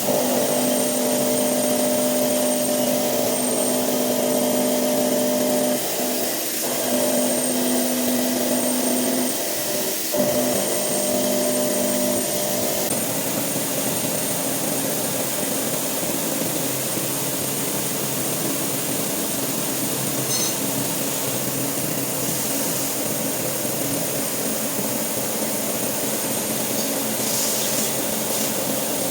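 Hitachi Seiki VM50 CNC mill cutting a steel mold block with a 35 mm cutter at 1000 rpm: a steady droning cutting tone for about twelve seconds, broken twice, with a click near ten seconds in. The tone then fades and the machine runs on with an even noise and a thin high whine.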